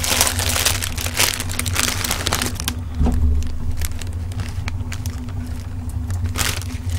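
Plastic ramen seasoning packets crinkling as they are torn open and shaken out, busiest for the first couple of seconds and again near the end, over a steady low hum.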